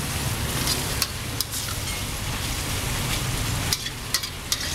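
Steady hiss of a wok sizzling over a high gas flame, with a low rumble underneath, and a few sharp clinks of a steel ladle scraping and knocking against the wok as gravy is ladled out.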